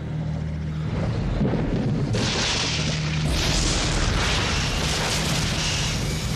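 Film sound effects of a lightning strike and a fiery blast: a low rumbling boom builds, then a loud crackling, sizzling blast of noise takes over from about two seconds in, over low droning music.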